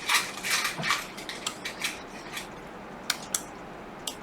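Small metal tools and parts clicking, clinking and scraping against a laptop's metal case and logic board during hands-on disassembly. The clicks come in a quick cluster in the first second or so, then turn sparser, with a pair about three seconds in.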